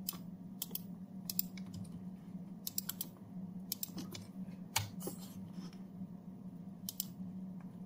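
Computer mouse clicks and keyboard keystrokes, scattered singly and in small quick clusters, over a steady low hum.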